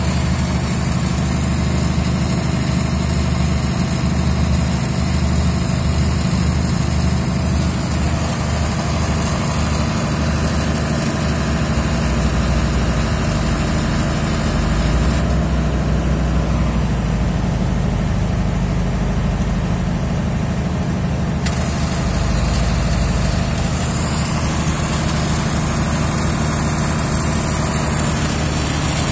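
Heavy machinery engine idling steadily with a low, even hum; its lowest note shifts slightly around the middle.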